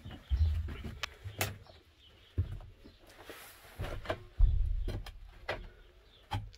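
Irregular knocks, clicks and low thuds from someone moving about inside a cluttered van's cargo hold among metal shelving, tools and gear; the loudest thud comes about four and a half seconds in.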